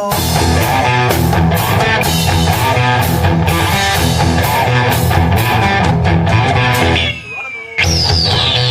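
Live rock band playing with electric guitar, bass and drums. The band drops out briefly about seven seconds in, then comes back in at full volume.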